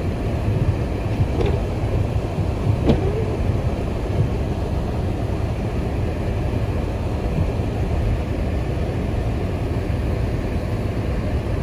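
Steady low rumble of a vehicle in motion, heard from inside the cabin.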